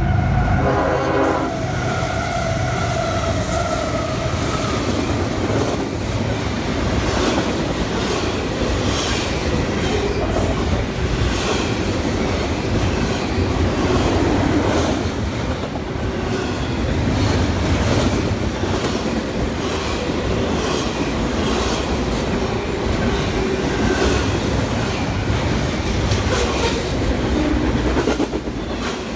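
A train passing through: its horn trails off in the first few seconds, then the wheels click in a steady rhythm over rail joints above a continuous rumble.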